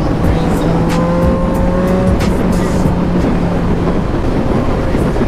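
Yamaha MT-09 inline three-cylinder engine running with a steady note under heavy wind noise, heard while riding.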